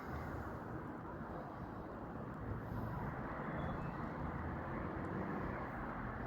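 Steady outdoor background noise: an even rumble with no distinct events.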